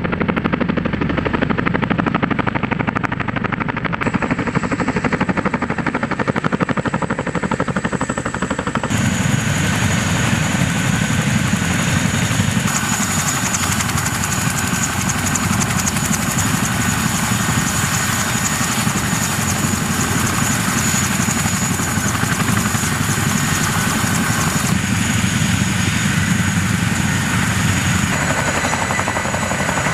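CH-47 Chinook tandem-rotor helicopters running, with a rapid, steady beat from the rotors. The sound shifts abruptly several times.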